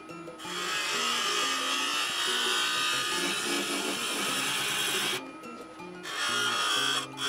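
Background music plays over the sped-up hiss of a bowl gouge cutting the outside of a Kentucky coffee tree bowl on a lathe. The cutting stops briefly at the start, for about a second around five seconds in, and again just before the end.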